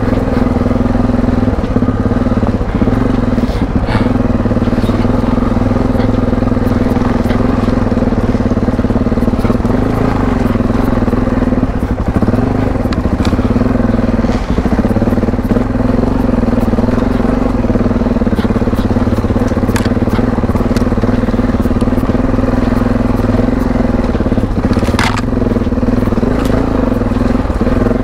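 Yamaha Ténéré adventure motorcycle's engine running at nearly steady revs under way, with scattered clicks and crunches of stones under the tyres.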